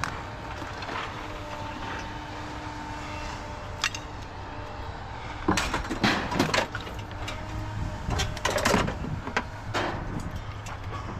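Steady low rumble, then from about halfway through a run of sharp metal clanks and bangs in quick clusters, the sound of scrap being handled and dropped while unloading.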